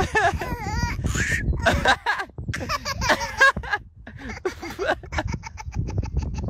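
A baby and a man laughing together in hearty bursts. Near the end the laughter turns into a quick run of short, even pulses, several a second.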